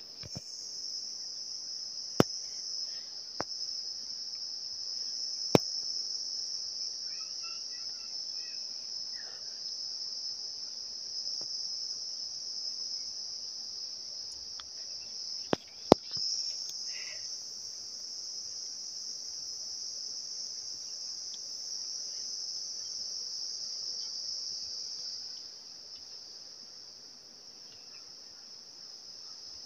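A steady, high-pitched insect chorus, a continuous shrill drone that eases a little near the end. Several sharp clicks sound over it, two of them close together about halfway through.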